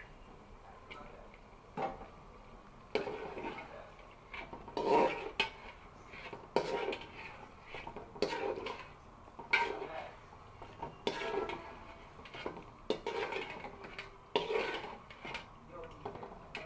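Metal utensil scraping and clinking against metal cookware in repeated strokes, about one every second and a half.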